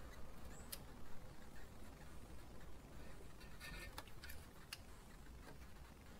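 Faint clicks and taps of hands working at a car's front brake caliper and its fittings: a single click under a second in, then a quick cluster of clicks around the four-second mark, over a low steady hum.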